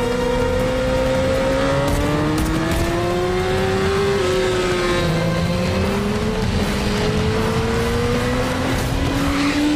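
BMW S 1000 RR sport bikes' inline-four engines running at high revs at racing speed, several at once, their pitch climbing slowly and dipping again as they accelerate and shift through the bends.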